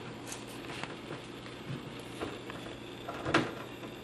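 A few light taps and knocks as a support bracket is handled and set into a cabinet corner, with one sharper knock about three seconds in.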